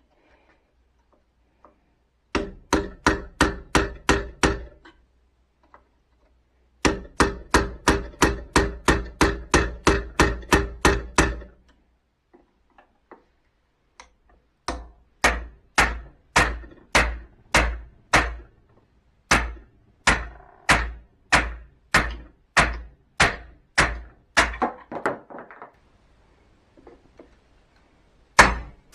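A hammer striking metal in steady runs of blows, each with a short ring. The blows come about three a second in two bursts, then slow to about two a second after a pause.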